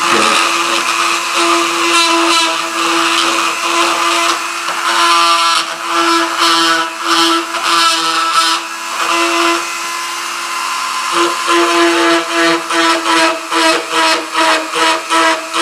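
Dremel rotary tool grinding the filler on a lead toy figure's leg, its motor whining steadily. In the second half the grinding comes in quick strokes, two or three a second.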